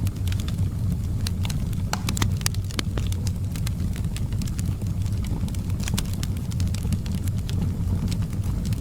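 Wood fire burning on logs in a fireplace: irregular sharp crackles and pops over a steady low rumble of the flames.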